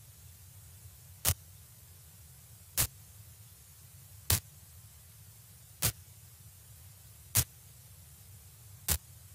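Six sharp clicks at a very even pace, about one every second and a half, over a faint low steady hum.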